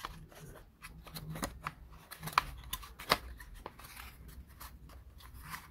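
Faint small clicks and taps of thin laser-cut plywood model parts being handled and pressed together with the fingers, with two sharper clicks about two and a half and three seconds in.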